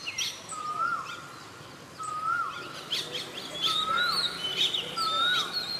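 Birds calling in trees: one bird repeats a short rising-then-falling note four times, about every second and a half, over quicker high chirps from other birds.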